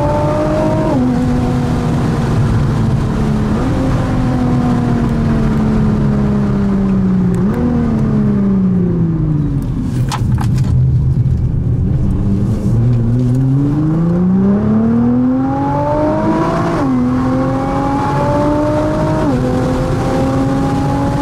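Nissan GT-R's twin-turbo 3.8-litre V6 with catless Y-pipe exhaust, heard from inside the cabin under hard acceleration, the pitch climbing and dropping sharply at quick upshifts. About a third of the way in it comes off the throttle and the revs fall for several seconds with a few sharp pops, then it pulls hard again through two more upshifts.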